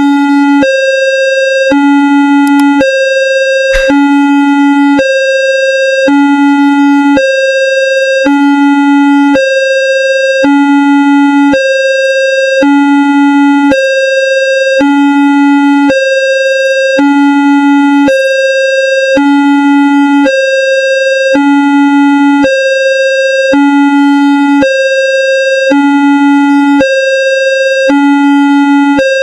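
Synthesized railway level-crossing alarm: a low and a high electronic tone, about an octave apart, alternate at about one tone a second in an unbroken loop. A short click comes about four seconds in.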